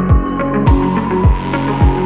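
Background electronic music with a steady deep beat, a little under two beats a second, and a high held tone that slowly falls in pitch; a bright hit lands about a third of the way in.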